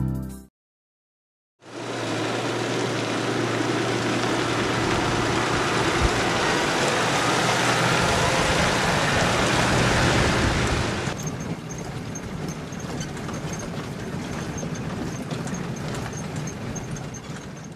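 Toyota Land Cruiser safari vehicle driving on an unpaved dirt road, with steady, loud engine and road noise. About eleven seconds in it turns into the quieter drone of the cab interior, with small ticks and rattles.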